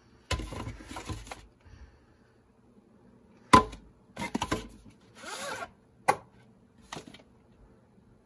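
A cardboard VHS sleeve and its plastic cassette being handled: a rustle, a sharp knock about three and a half seconds in as the box is set on the table, then rustling and scraping as the cassette is pulled out of the sleeve, and a click.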